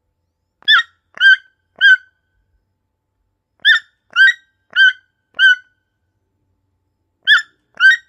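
Toucan calling: short pitched calls with rich overtones, each about a fifth of a second, given in groups of three, then four, then two, about two calls a second within a group, with pauses between groups.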